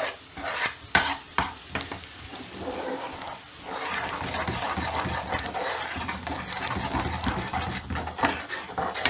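Reducing curry sauce sizzling in a frying pan, with the oil risen to the top. A spoon stirs and knocks against the pan several times in the first couple of seconds and again near the end.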